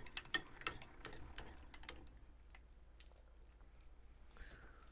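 Faint ticking of a metal lathe's carriage handwheel and gearing as it is cranked to run the boring bar in, about four clicks a second, stopping about two seconds in.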